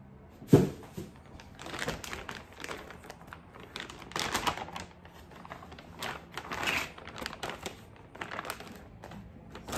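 A clear plastic bag crinkling and rustling as it is handled, opened and a fabric dust bag is pulled out of it, in irregular bursts. A single sharp thump about half a second in is the loudest sound.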